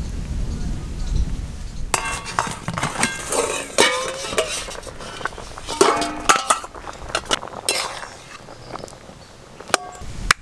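Metal cooking pots, a steel lid and a slotted spoon clinking and clanking against each other, in a series of sharp strikes, several of which ring briefly. The strikes start about two seconds in, after a low rumbling noise, and thin out near the end.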